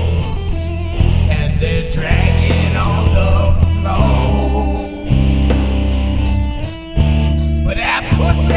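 Blues song: a man singing over a band, with a loud bass line that changes note about once a second and bending guitar notes.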